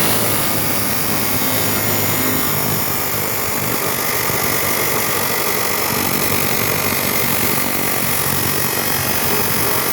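A chop saw running steadily, its blade cutting through material without a break.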